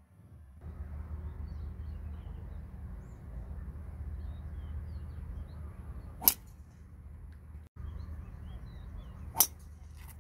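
Two sharp cracks of a driver clubhead striking a teed-up golf ball, about three seconds apart, over a steady low outdoor rumble.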